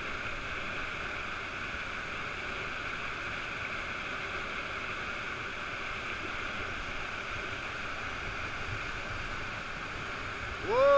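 Whitewater rapids below a weir: a steady, even rush of churning river water. A loud held tone begins right at the end.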